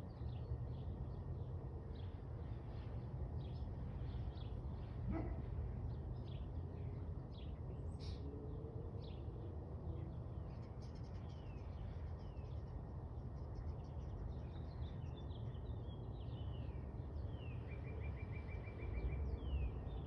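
Songbirds chirping and calling in many short notes, with a quick trill of repeated notes near the end, over a steady low outdoor rumble.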